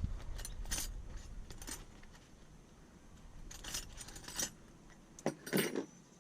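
Metal hand tools clinking and rattling against each other as a tool bag is rummaged through, in several short clusters.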